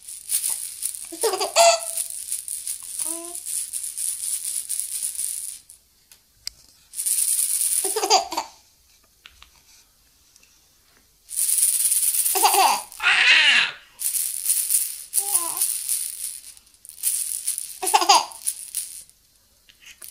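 A hand-shaken plastic lattice rattle ball with beads in a clear capsule, rattling in spells of a few seconds with short pauses between. A baby laughs and makes short vocal sounds several times, over and between the rattling.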